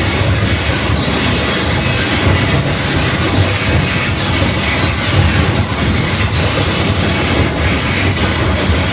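Live electronic noise music: a loud, continuous wall of dense noise with a throbbing low rumble underneath.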